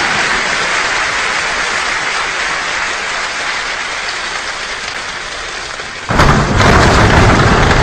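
Concert audience applauding, slowly dying down, then a sudden louder burst of applause about six seconds in that cuts off abruptly.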